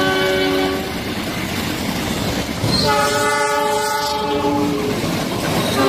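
Diesel locomotive horn sounding a chord in separate blasts over the rumble and clatter of a passing train's wheels on the rails. One blast fades out about a second in, a longer one starts about three seconds in and holds for some two seconds, and another begins at the very end.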